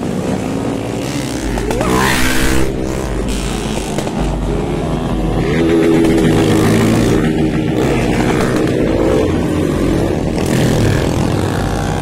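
Several motorcycle engines running and revving as the bikes ride past, engine notes rising and falling in pitch.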